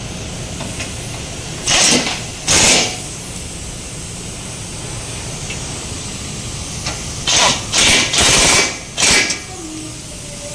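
Pneumatic impact wrench run in short bursts against bolts on a car's underside: two bursts about two seconds in, then four more in quick succession a few seconds later, over a steady workshop hum.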